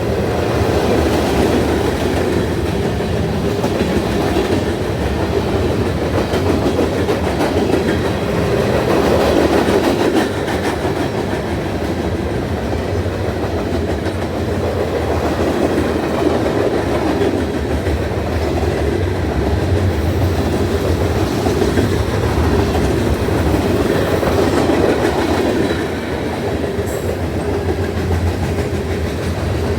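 Norfolk Southern manifest freight train rolling past, its cars' wheels making a steady, unbroken rolling noise on the rails.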